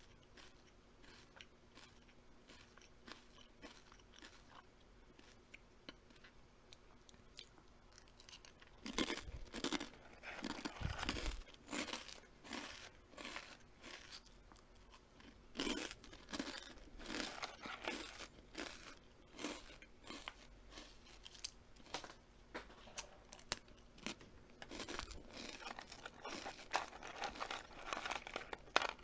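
Close-up crunching and chewing of something being eaten. Only faint scattered clicks for the first eight seconds or so, then irregular crunchy bites and chewing, loudest around nine to twelve seconds and again towards the end.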